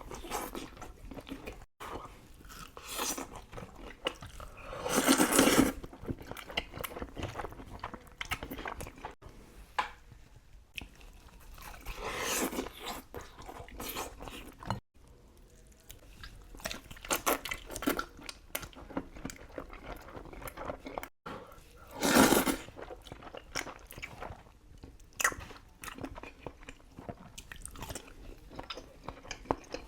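A person eating Buldak spicy instant noodles: steady chewing and mouth noises, with three louder slurps of about a second each spread through.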